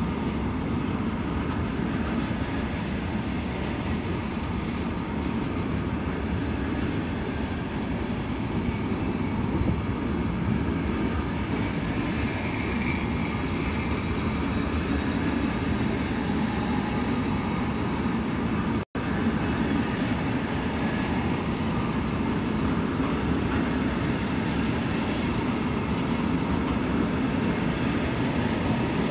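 A train moving slowly along the tracks, heard from on board: a steady running rumble. The sound cuts out for an instant about two-thirds of the way through.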